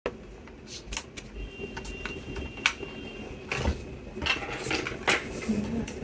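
Scattered small clicks and taps of a laptop motherboard and its cable connectors being handled and fitted in the laptop's bottom case, with a faint steady high tone for about two seconds near the start.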